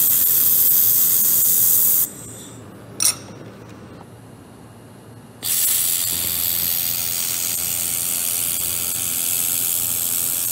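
1.5 kW handheld laser welding head welding thin stainless steel, giving a steady high hiss of gas and sparks over a low machine hum. The hiss stops about two seconds in, comes back in one short burst a second later, and resumes steadily about five and a half seconds in.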